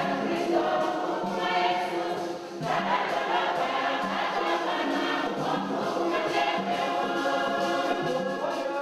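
A choir singing a church song, many voices together, with a brief drop in the singing about two and a half seconds in.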